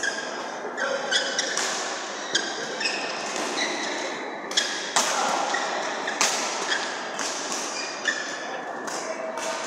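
Badminton rally: racket strings smacking a shuttlecock, a sharp crack every half second to a second, with sneakers squeaking on the court floor in between, all echoing around a large hall.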